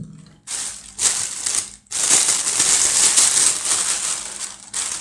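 Plastic packaging crinkling and rustling as it is handled, in several stretches, the longest starting about two seconds in.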